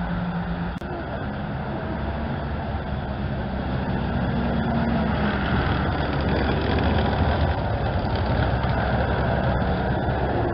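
Engine of a camouflaged military vehicle running as it drives along a dirt forest track, growing louder as it approaches and staying loud to the end.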